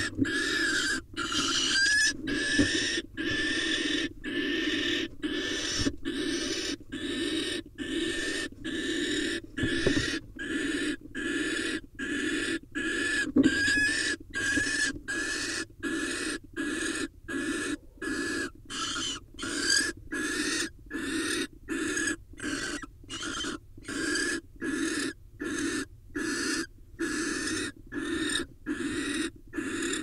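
Barn owl giving its hissing, rasping 'snoring' call over and over at an even pace, about three calls every two seconds, each lasting about half a second. This is the food-begging call that a female barn owl gives to her mate.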